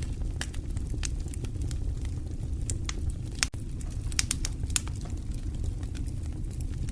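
Wood fire burning in a fireplace: many sharp crackles and pops over a steady low rumble, with a run of louder pops a little past halfway.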